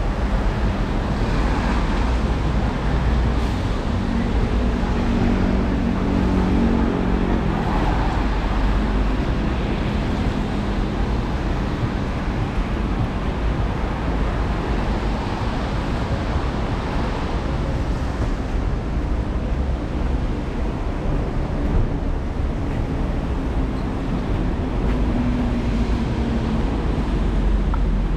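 City street traffic noise: a steady wash of vehicles passing on wet roads, with an engine hum that swells and fades between about four and eight seconds in.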